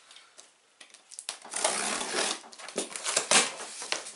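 Cardboard shipping box being opened with a box cutter. It is quiet for about the first second, then the cardboard and packing tape scrape and rustle, with a few sharp clicks.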